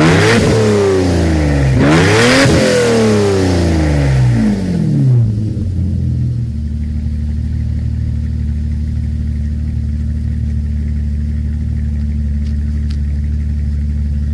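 BMW M8's 5.6-litre S70 V12 engine heard at the exhaust, blipped twice so the revs climb sharply and fall back, then settling into a steady idle.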